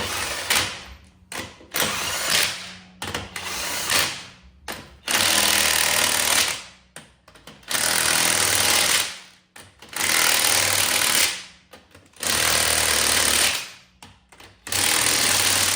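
Impact wrench hammering in a string of bursts: several short ones, then five longer runs of over a second each with brief pauses between.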